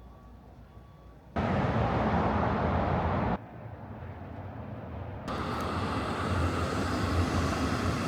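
Outdoor street ambience with a steady rush of traffic, changing abruptly between edited clips: faint at first, much louder for about two seconds, then a lower rumble that grows louder again about five seconds in.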